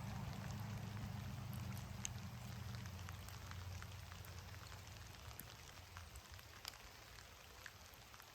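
Rain falling outdoors, individual drops tapping at scattered moments over a faint hiss. A low rumble underneath fades away over the first half.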